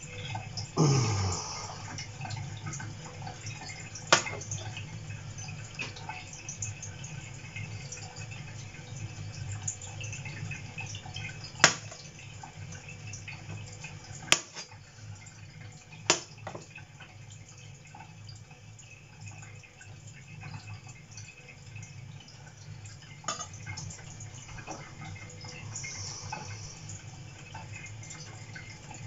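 Meat cleaver cutting king bolete mushroom on a plastic cutting board: about five sharp, separate knocks of the blade on the board, several seconds apart, over a low steady background hum. A short falling sound comes about a second in.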